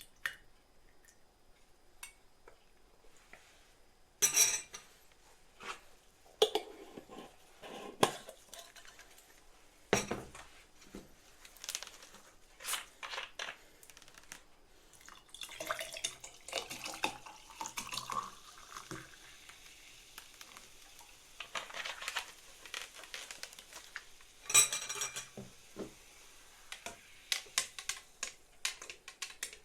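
Kitchenware being handled: dishes, glass and utensils clink and knock at irregular intervals, with a few louder knocks, and a short rising tone near the middle.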